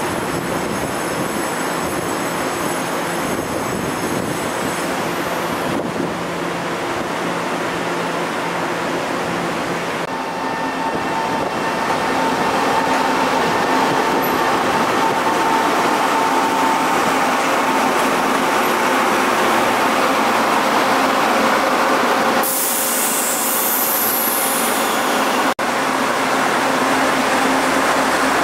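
Taiwan Railways DR1000-series diesel railcars running past, engines and wheels on the rails. The sound grows louder about a third of the way in as the cars draw alongside, and a brief high-pitched burst comes about two-thirds through.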